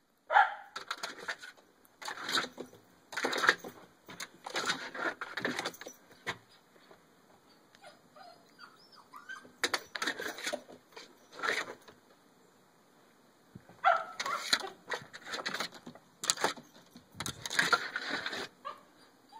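Cockapoo jumping up at a glass-paned door, its paws scrabbling against the door and glass in repeated scratchy bursts of half a second to a second and a half, with pauses of a few seconds between.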